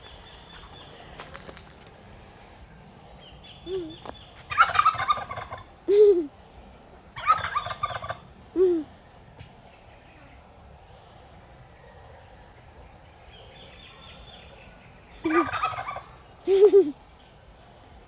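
Domestic turkeys gobbling: three rattling gobbles about a second long each, with short, lower single calls in between.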